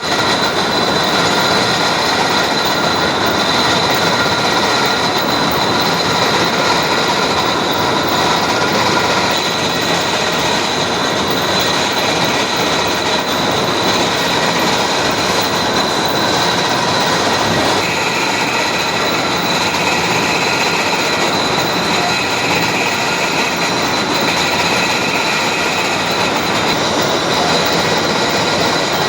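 Metal boring machine running steadily: a constant mechanical din with a steady high-pitched whine held over it.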